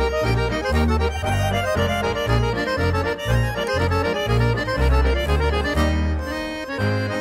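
Traditional folk music led by accordion, with a bass line stepping on a steady beat.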